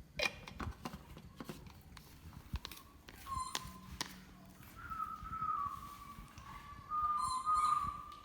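Baby monkey giving thin, drawn-out, whistle-like cries that waver in pitch, starting about three seconds in and running almost unbroken over the last few seconds, after a few light clicks or knocks in the first second.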